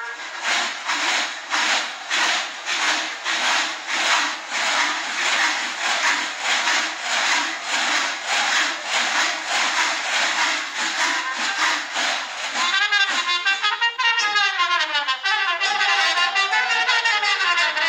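Folk brass band with trumpets playing dance music. For about the first twelve seconds a strong beat of roughly two strikes a second drives it; after that a melody with swooping, bending notes comes to the fore.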